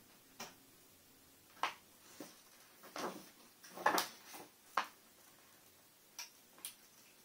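About eight light, irregular clicks and taps, the loudest a short cluster around the middle: test leads and hand tools being handled while voltages are measured on a TV's LED backlight strips.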